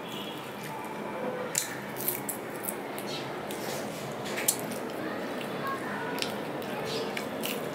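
Close-miked eating sounds: wet chewing, lip smacks and sucking as chicken curry is eaten by hand off the bone, a scatter of short sharp clicks over a steady hiss.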